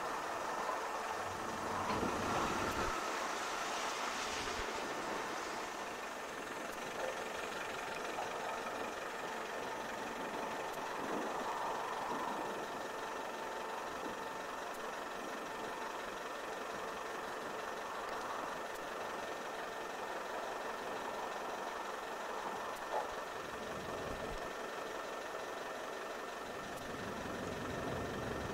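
Boeing 707's four jet engines running at a distance as the airliner moves along the runway, a steady rushing noise that grows a little louder near the end.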